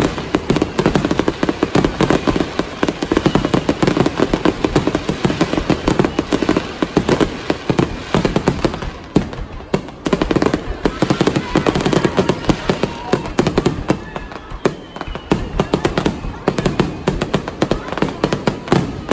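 Fireworks display: aerial shells bursting in a rapid, overlapping barrage of bangs and crackles. It thins out briefly about halfway through.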